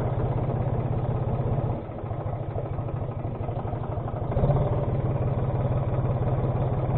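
New Holland 54C tractor's diesel engine running at idle with a steady pulse; it drops off a little about two seconds in and picks up again a little after four seconds.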